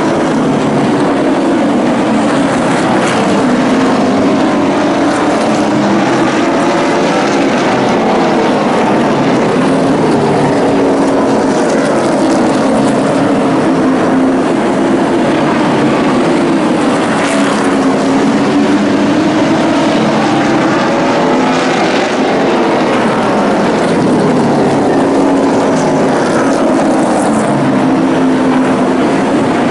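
A pack of short-track race trucks running at racing speed, their engines loud and steady. The engine notes rise and fall over and over as the trucks accelerate down the straights and lift for the turns.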